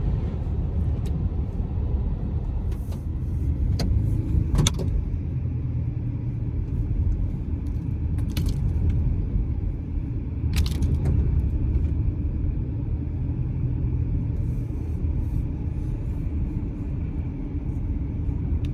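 Car driving, heard from inside the cabin: a steady low rumble of tyres and engine on the road, with a few brief clicks and rattles.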